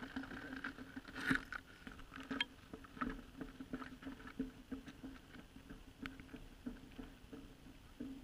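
Irregular knocks, scrapes and crunches on slushy lake ice as people kneel and move at an ice-fishing hole and haul a fish out onto the ice, with the loudest knock about a second in.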